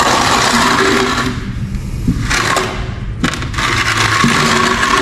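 Steel trowel scraping and smoothing thin-set tile adhesive over the back of a porcelain tile, a coarse gritty scrape in three strokes: one long, one short, then another long one.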